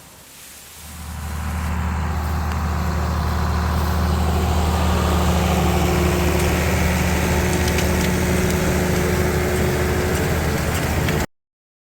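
Tractor engine running steadily with a deep, even hum; it comes up over about a second and cuts off abruptly near the end.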